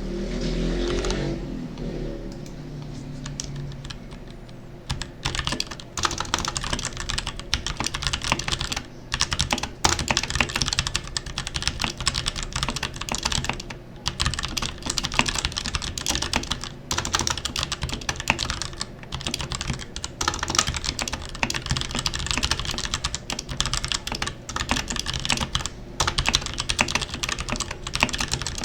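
Typing on an RK61 mechanical keyboard with brown switches after a year of use: rapid, continuous keystroke clacking with a few brief pauses. It is quieter for the first few seconds, and full-speed typing sets in about five seconds in.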